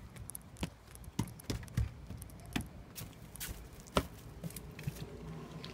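Footsteps and knocks from a phone being handled while its holder walks, a string of irregular taps about one or two a second over low rumbling handling noise.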